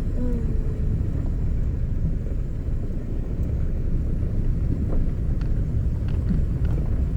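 Car on the move: a steady low rumble of engine and tyres.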